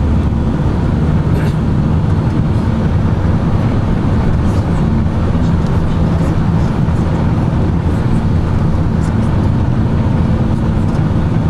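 Steady low rumble of a moving vehicle heard from inside: engine and road noise running evenly at cruising speed.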